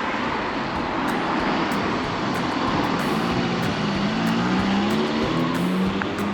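A motor engine droning past over steady street noise, its pitch wavering up and down in the second half.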